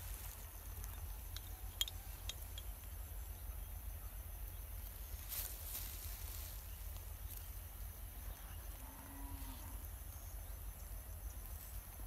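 Faint outdoor pond-side ambience: a steady high insect chirring over a low rumble, with a few small clicks early and a brief rustle about five seconds in.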